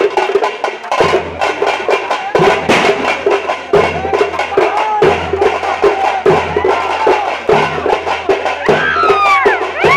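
Drums beaten in a steady rhythm over crowd noise. Near the end, high shrill glides rise and fall several times.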